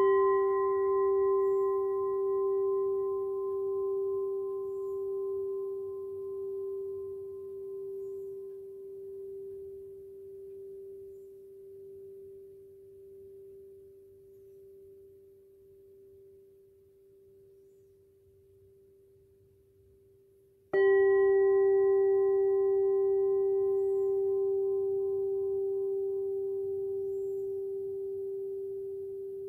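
Handmade crystal singing cup tuned to G, struck twice about 21 seconds apart. Each time it rings with one clear, steady tone whose higher overtones die away first, and the ring wavers slowly as it fades.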